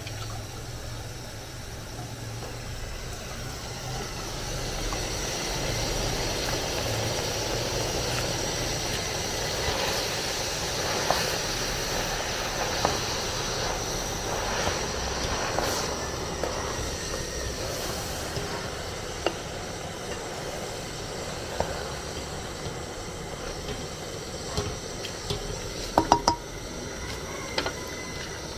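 Pot of vegetable soup cooking with a steady hiss that swells a few seconds in and eases later. Scattered clicks, and a few sharp knocks near the end.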